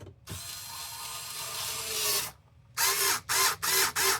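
Electric screwdriver running for about two seconds while driving a screw, then, after a short pause, run in quick short pulses, about three a second, as the screw seats. The driver is let spin in the hand rather than torquing the screw down.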